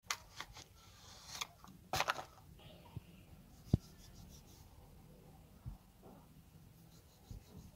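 Paper wrapper crinkling as a bar of soap is unwrapped by hand for about the first two seconds. A single sharp tap follows a little past the middle, then a few soft knocks as the bare bar is handled.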